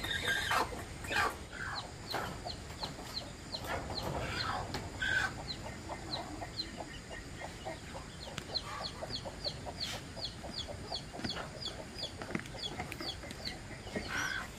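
Chickens: chicks peeping in a long run of short, high, falling peeps, two or three a second, with a few fuller clucking calls in the first seconds.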